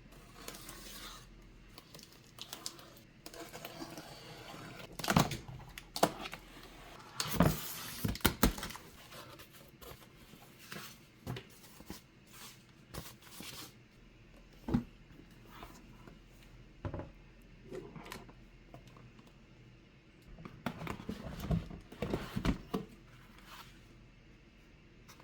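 A keyboard's cardboard box and packaging being handled: irregular rustles, scrapes and taps, with the busiest handling about five to eight seconds in and again near the end.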